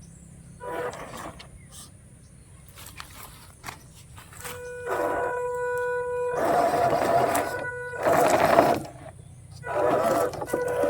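Toy RC dumper truck's small electric motor running in stop-start bursts of throttle, with a steady high-pitched whine under some of them. It is quieter in the first half and busier and louder from about halfway in.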